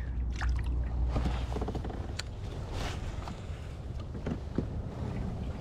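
Small splashes as a released fish drops back into the water, then scattered light knocks and clicks of a fishing rod and reel being handled in a plastic kayak.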